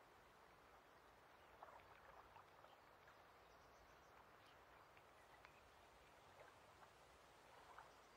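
Very faint lake ambience: a soft, even wash of water noise with a few brief ticks scattered through it.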